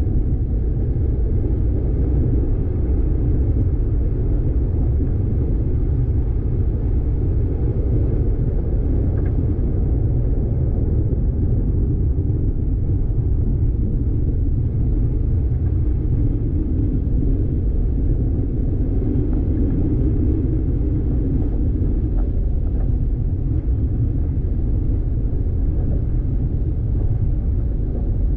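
A vehicle driving on a dirt road: a steady low rumble of engine and tyres that holds even throughout.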